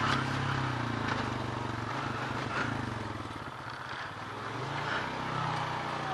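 ATV (four-wheeler) engine running steadily while being ridden along a trail, easing off slightly around the middle and picking up again.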